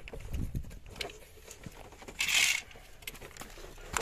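Light clicks and knocks of hands handling a plastic meter terminal block and heavy copper cables, with a short rustling hiss a little after two seconds in.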